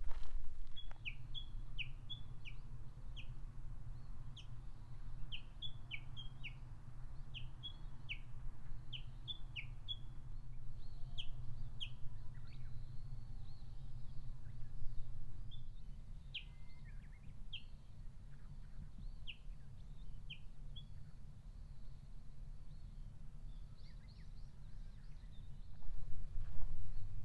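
Small forest birds calling: short, high notes that slide downward, often in quick pairs, repeated many times through the first twenty seconds over a low rumble. Footsteps on the forest path start near the end.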